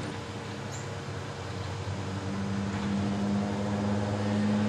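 Front-load garbage truck's diesel engine revving up to drive the hydraulics as its lift arms raise a dumpster. The engine hum gets steadily louder from about two seconds in.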